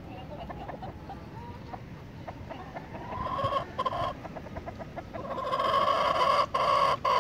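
A flock of chickens clucking softly, with a rooster crowing: a shorter broken call about three seconds in, then a long, louder crow from about five seconds in.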